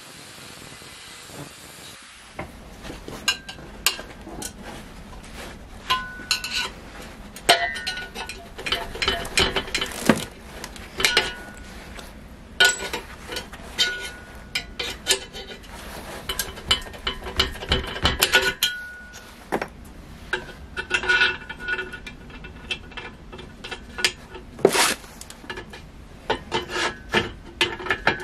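Angle grinder finishing a cut through steel box section for about the first two seconds, then stopping. After that, steel parts clink and knock: the tube being handled in a steel vise and a steel wheel and bolt being fitted to it, with short metallic rings.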